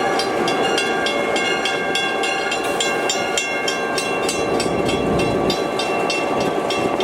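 Museum train rolling on jointed track: a continuous rumble of wheels on rail, with a steady high-pitched wheel squeal and rapid ticking throughout.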